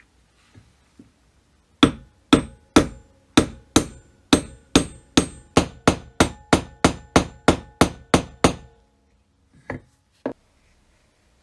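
A hammer striking a metal part of an antique charcoal iron about eighteen times, each blow ringing, the blows quickening from about two to three a second. Two lighter knocks follow near the end.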